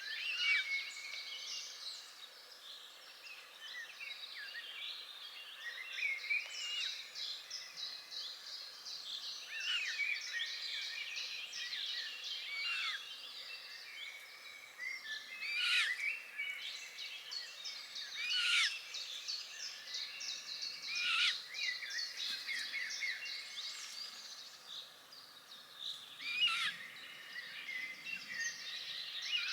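Songbirds singing in a dense, continuous chorus of chirps and trills from several birds. Louder, sharp falling calls stand out every few seconds in the second half.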